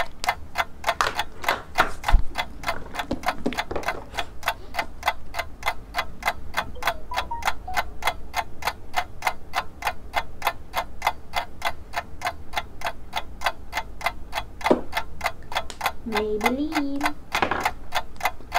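Steady, rapid ticking of a countdown-timer clock sound effect, about four ticks a second, marking time running out.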